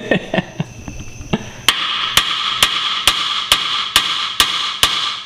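Hammer striking the steel steering knuckle (spindle) of a VW Golf's front suspension to drive it down off the strut: after about a second and a half, a steady run of about eight ringing metal-on-metal blows, roughly two a second.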